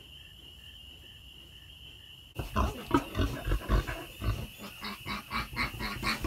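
A farrowing sow grunting in quick, uneven repeated grunts, about two or three a second. The grunts start suddenly a little over two seconds in, after a quiet stretch.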